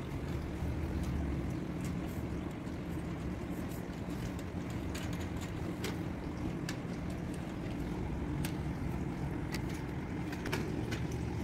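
Pool water sloshing as a long-handled pool brush is pushed along the pool floor and walls, over a steady low rumble, with scattered faint clicks.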